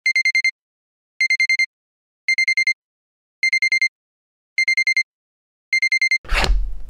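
Electronic timer alarm beeping: six quick bursts of about five high beeps each, a little over a second apart, marking the three minutes for a cup noodle. A thud and rustle follow near the end.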